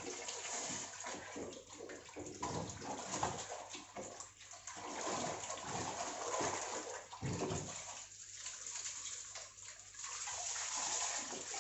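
Water from a hose spraying and splashing inside a washing machine tub, rinsing out caked mud from under the removed pulsator, the flow rising and falling unevenly as it is moved around.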